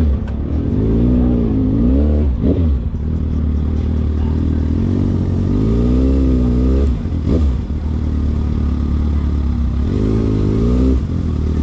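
Vehicle engine being revved over and over at a car meet, its pitch rising and falling several times, with two quick sharp blips, over a steady low rumble.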